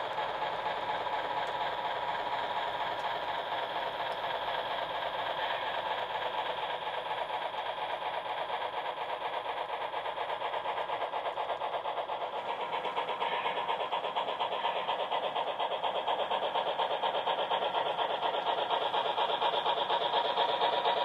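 HO scale model steam freight train running, a steady rapid rhythmic mechanical sound that grows a little louder toward the end.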